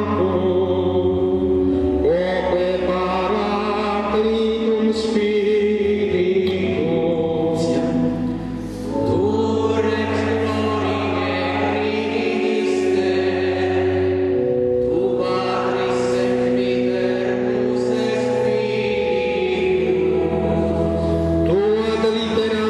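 Slow choral chant: voices holding long notes over a steady low drone, with a new phrase starting about every six or seven seconds.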